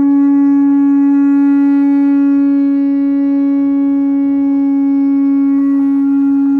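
A horn sounding one long, steady, unwavering note that starts suddenly and holds.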